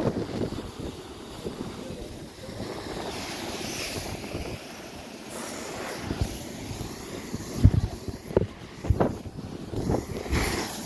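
Sea water surging and spraying through a rock blowhole, under a steady wash of wind on the microphone. A few short low thumps come in the second half.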